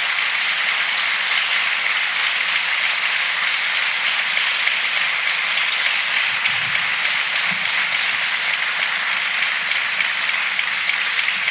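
Sustained applause from the deputies filling the chamber, a dense steady clapping that greets the end of the speech.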